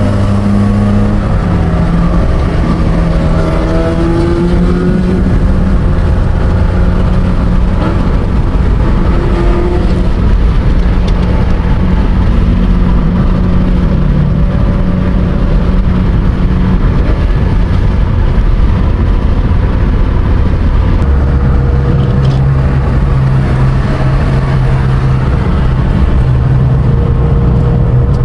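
BMW M3 race car engine running loud and hard, its pitch climbing with the revs in the first few seconds, then holding fairly steady. About 21 seconds in it drops to a lower, steady note.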